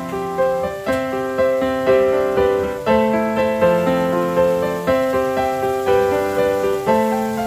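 Background piano music: a gentle tune of held notes, with a new note or chord struck about once a second.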